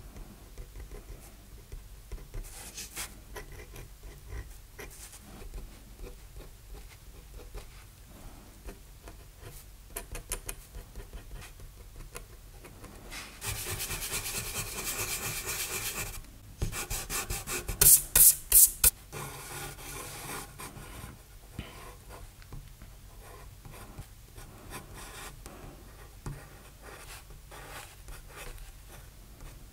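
A steel kabura dip-pen nib scratching on paper in short strokes. About halfway in it gives way to a kneaded eraser rubbed over the paper, loudest in a quick run of back-and-forth strokes. Light scratching of a Mitsubishi Hi-Uni 4B graphite pencil sketching follows.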